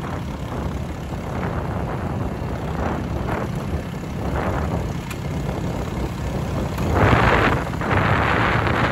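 Motorbike engine running steadily at low road speed through a muffler that needs replacing, with wind buffeting the microphone. Two louder swells come near the end.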